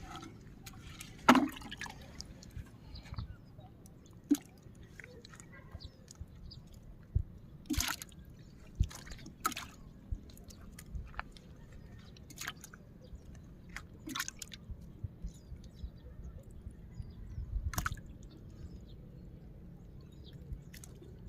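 Scattered drips and small splashes of water, a few sharp ones every second or two over a low hiss.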